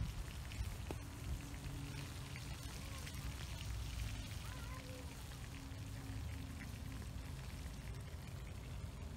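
Burger patties sizzling on a griddle over an open wood fire, a steady hiss with small pops and crackles, over a low rumble.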